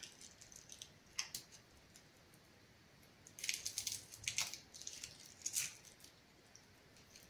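Fingers peeling the dry, papery skin off a garlic clove: faint crackly rustles in a few short spells, the skin coming away easily.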